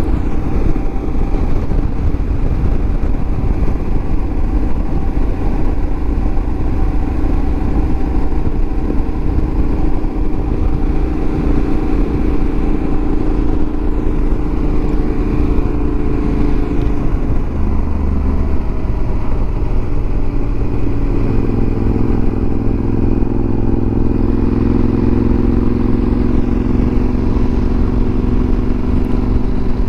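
Yamaha Super Ténéré XT1200Z's parallel-twin engine running steadily at cruising speed, with wind rushing over the microphone. The engine note changes about two-thirds of the way through.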